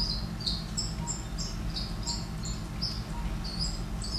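A series of short, high chirps, roughly three a second and irregularly spaced, over a steady low hum.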